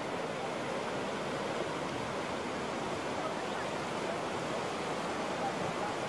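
Whitewater rapids rushing steadily, a constant churning roar of fast water.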